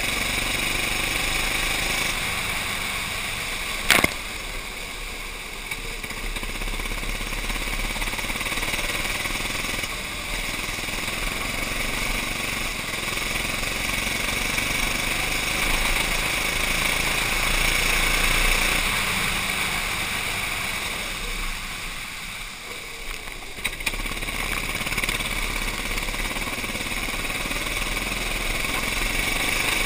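Go-kart engine running at racing speed on the onboard camera, its sound rising and falling with the throttle through the corners, under a steady hiss of water spray from the tyres on the wet track. There is one sharp knock about four seconds in.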